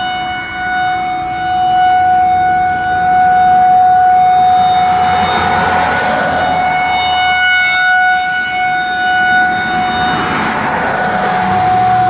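Federal Signal 2001-SRNB rotating siren sounding a steady single-pitch alert tone, growing louder over the first few seconds as the turning horn swings toward the listener. Two swells of rushing noise pass over the tone, one midway and one near the end.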